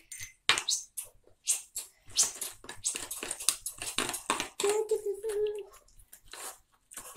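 Scattered clicks and taps of a spoon and plastic tubs being handled while green foam balls are stirred into homemade slime, with a brief voice sound about five seconds in.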